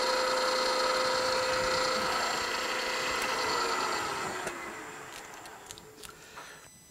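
Milling machine spindle running with a steady whine while a small drill bit is backed out of a brass cylinder block, then winding down, the whine falling in pitch and fading about four seconds in. A few light clicks near the end.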